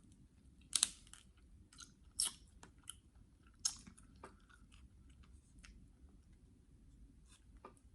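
Close-up eating of lobster tail meat: chewing and wet mouth sounds broken by sharp clicks and cracks, the loudest about a second, two seconds and three and a half seconds in.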